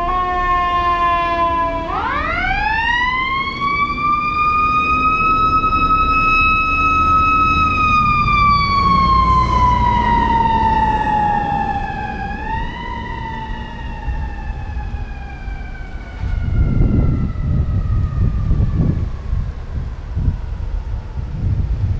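A fire engine's siren winds up quickly to a high steady wail, then slowly falls in pitch, with one short rise partway through. Near the end, heavy vehicle engines rumble unevenly as they pass.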